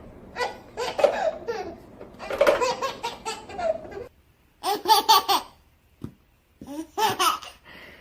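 A small child laughing in several bursts, with brief silent gaps between them.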